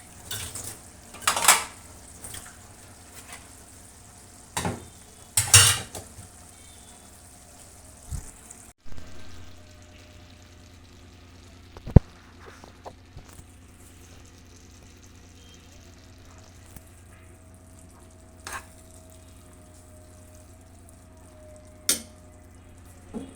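Chicken kebabs frying in a pan, with a utensil scraping and clinking against it in separate bursts. The bursts are loudest in the first six seconds and thin out to a few sharp clicks later.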